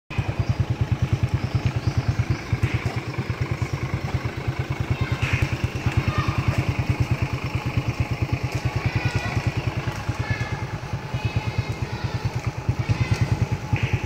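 Motorcycle engine idling, a steady, rapid low putter.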